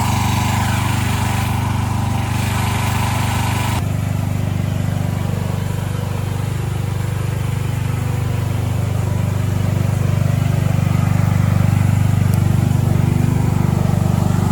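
A small engine running steadily. About four seconds in, the sound changes abruptly: the upper hiss drops away and the low engine note carries on.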